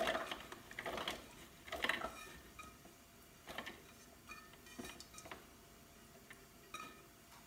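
Faint soft taps and clatter of cooked chickpeas dropping into a plastic food-processor bowl as they are tipped and pushed out of a non-stick pot by hand. The taps are busiest in the first two seconds, then thin to a few scattered ones.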